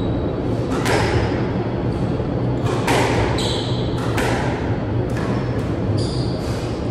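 Squash rally: about ten sharp hits of the ball off rackets and walls, each with a short echo, and brief squeaks of shoes on the wooden court floor, over a steady low hum.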